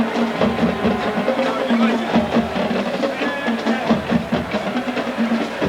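College marching band playing: brass holding sustained notes over a steady drum-line beat.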